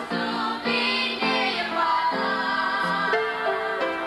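Gospel music with sustained sung notes held as chords, changing every half second to a second.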